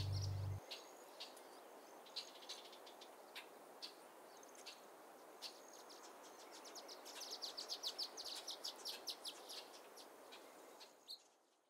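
A music track stops about half a second in, leaving a soft outdoor ambience with small birds chirping: scattered single chirps, then a quick run of chirps for about two seconds past the middle, before it fades out at the end.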